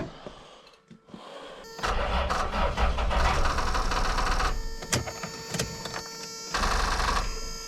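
A truck engine being jump-started on dead batteries: quiet at first, then about two seconds in it turns over and runs loudly, its sound shifting a couple of times.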